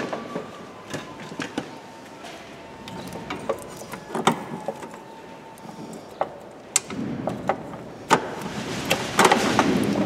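Metal hand tools clicking and knocking in a car's engine bay as a wrench undoes the bolts of a diesel fuel filter bracket: scattered sharp clicks throughout, with a denser spell of rattling and scraping in the last few seconds.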